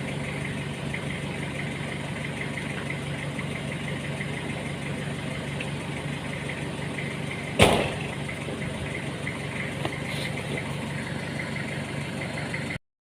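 A motor running steadily with a low hum, with one sharp knock about seven and a half seconds in. It cuts off abruptly near the end.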